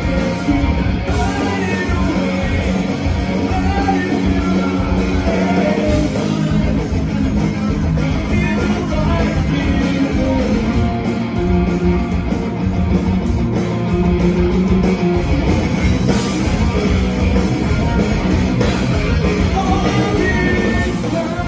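Live rock band playing loudly, with electric guitar, drums and a singer.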